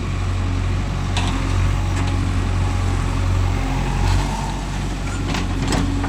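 Heavy diesel engine running steadily with a deep hum, and a few light knocks over it.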